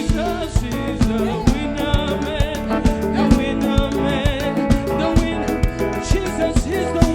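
Live African praise band music with a steady drum beat of about two hits a second under a wavering melody line.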